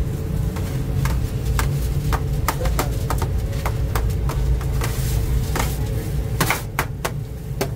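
A cleaver chopping stacked slices of sausage on a stainless steel counter, the blade knocking sharply on the steel about twice a second in an uneven rhythm, over a steady low rumble.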